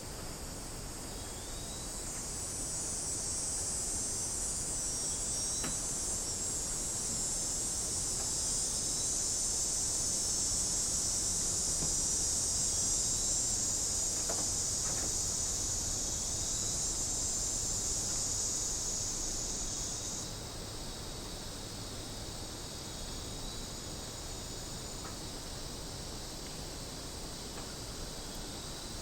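Cicadas buzzing in chorus: a dense, high-pitched buzz that swells over the first few seconds and then drops suddenly to a lower, steady level about two-thirds of the way through.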